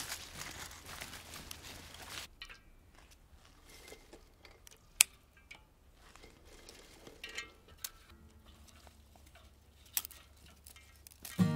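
Dry cherry twigs rustling for the first two seconds, then the sharp snips of hand shears cutting the thin twigs, a few scattered cuts, the loudest about five seconds in and another near ten seconds. Music starts just before the end.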